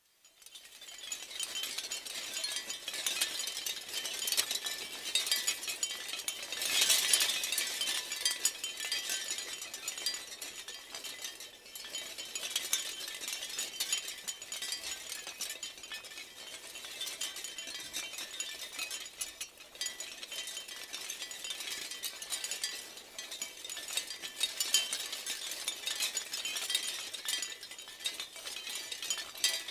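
Wind chimes jangling continuously, with many overlapping clinks and ringing tones at a few fixed pitches. They fade in over the first second and swell louder about seven seconds in.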